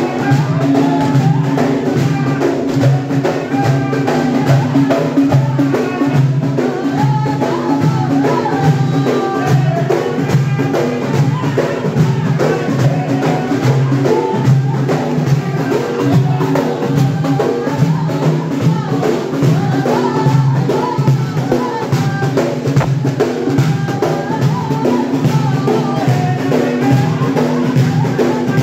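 Several large hand-held frame drums beaten together in a steady rhythm, with a group of men's voices chanting along.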